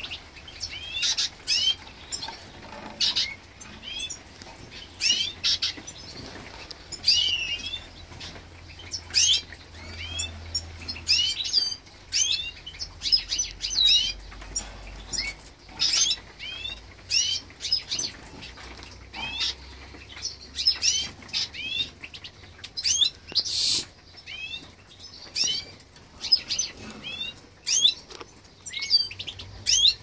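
Caged finches chirping: short sharp calls with quick pitch glides, repeated every second or so, several in quick runs at times.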